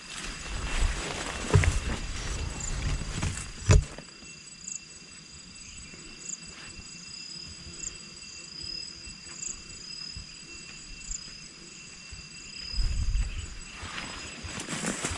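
Footsteps on a dirt hill trail for the first few seconds, ending in a sharp thump just before four seconds in. Then a steady high insect drone of two even tones, with a faint high chirp repeating about once a second. Footsteps come back near the end.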